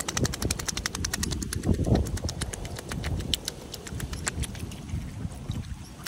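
Mute swan dabbling its bill in shallow water while feeding: a rapid, steady run of wet clicks and small splashes, several a second. A low rumble of wind on the microphone runs underneath.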